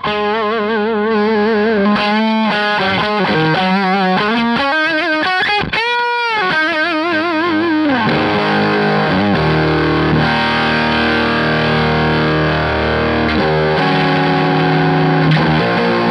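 Overdriven electric guitar, a 1980 Gibson Les Paul through a Scarlett Screamer 30 head and a 2x12 cabinet loaded with Eminence CV75 speakers, close-miked. It plays a lead line of single notes with wide vibrato, with one note bent up and back about six seconds in, then moves to held, ringing chords. The CV75s are British-type speakers with a smooth, mellow top end.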